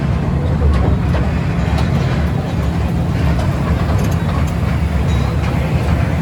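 Toy train running along its track, heard from aboard: a steady low rumble with a few faint clicks.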